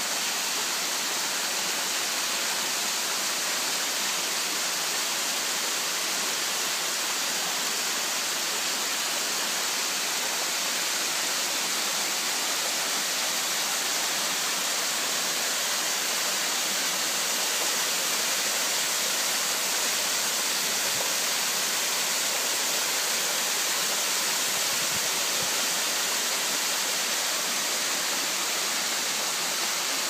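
Small waterfall cascading over rock ledges into a stream: a steady, even rush of falling water.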